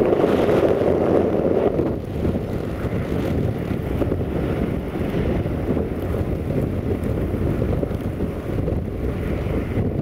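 Wind buffeting the microphone in a blizzard over the rumble of a train running away down the track. The louder part eases off after about two seconds, leaving steady wind noise.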